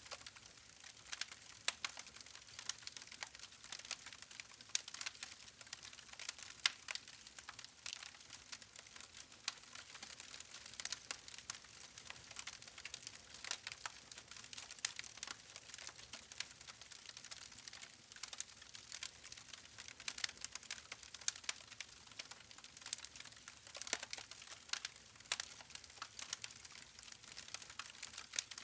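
Wood fire crackling: a steady stream of irregular small pops and snaps from the burning logs over a faint hiss.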